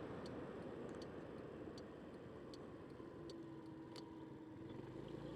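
Faint, regular ticking about every three-quarters of a second over the low rumble of a Yamaha Vino scooter on the move: the turn signal clicking during a right turn. A steady hum from the scooter comes in about three seconds in.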